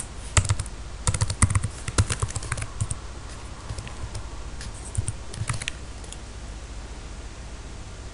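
Typing on a computer keyboard: a quick run of keystrokes over the first three seconds, a few more around five seconds in, then the typing stops.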